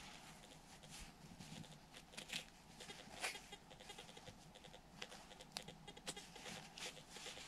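Near silence, with faint scattered ticks and soft scrapes as fingers rub soil off a small dug-up coin.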